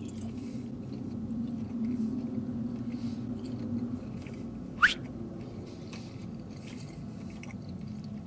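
A man chewing a breaded fried chicken nugget, with soft, wet chewing sounds and faint crunches. A short rising squeak comes about five seconds in.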